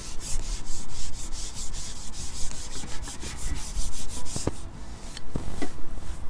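A carbon fishing pole being drawn back to land a hooked fish, rubbing and scraping in a quick steady rhythm, about six strokes a second. The rubbing stops about four and a half seconds in, followed by a couple of light clicks.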